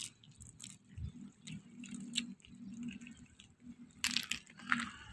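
Faint crunching and clicking of mussel shells being picked by hand off a concrete pier wall, with a louder stretch of crackling about four seconds in.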